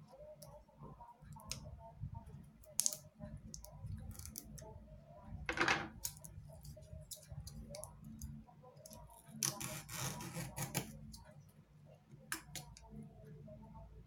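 Small hand tools working inside an opened iPad 2: irregular light clicks and taps on its casing and parts, with a short scrape about halfway through and a longer rustling scrape around ten seconds in, over a steady low hum.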